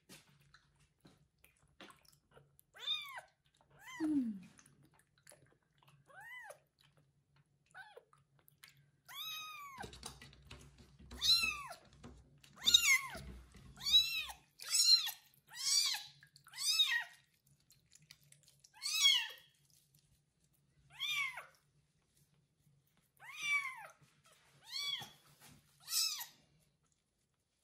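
Very young ginger kitten meowing loudly and over and over during its first bath: short, high cries that rise and fall in pitch, a few at first, then about one a second.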